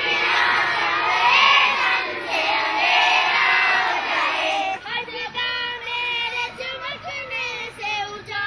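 A group of young schoolgirls singing a prayer together in unison. The voices are dense and massed at first, and the melody comes through more clearly with held notes from about halfway.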